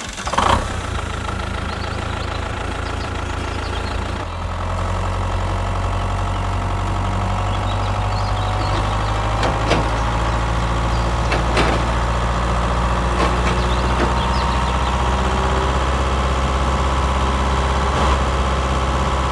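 A motor running steadily with a low hum and a faint whine that rises slowly, getting a little louder about four seconds in, with a few clicks.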